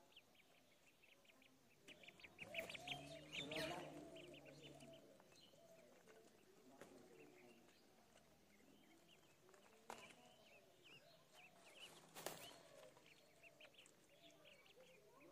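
Faint, rapid peeping of a group of ducklings, many short high calls overlapping, with a louder busier spell about three seconds in and a couple of soft clicks later.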